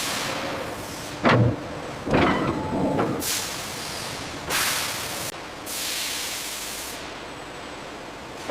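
Factory noise: two metallic clanks in the first three seconds, then several bursts of hissing, each up to about a second and a half long.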